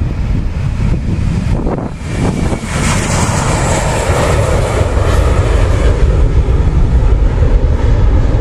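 Airbus A321 jet engines at takeoff thrust as the airliner lifts off and climbs away. The roar swells sharply about two and a half seconds in, and a deep rumble keeps growing louder toward the end.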